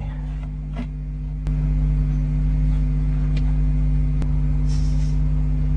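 Steady electrical mains hum on the nestbox camera's audio, stepping up louder about a second and a half in, with a few faint clicks and a brief hiss near the end.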